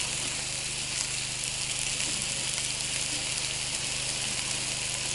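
Pike steaks sizzling steadily on the non-stick cooking mat of an O-GRILL 700 portable gas grill, an even frying hiss.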